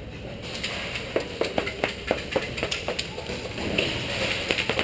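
Quick, even footsteps, about four a second, as a player moves at a jog or run.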